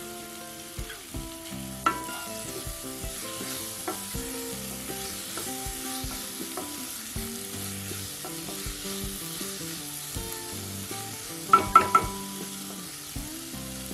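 Chopped capsicum, onion and tomato sizzling in oil in a nonstick kadai as they are stirred with a wooden spatula. A few sharp knocks of the spatula against the pan come near the end.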